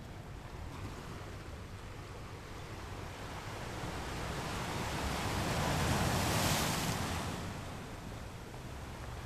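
Ocean waves on a shore: a wash of surf that swells slowly to a peak about six seconds in as a wave breaks, then eases back.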